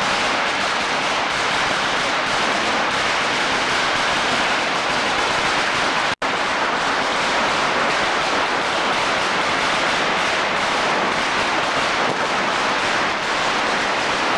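Dense, continuous crackle of many firecrackers going off at once, an even rattle with no single bang standing out. The sound drops out for a moment about six seconds in.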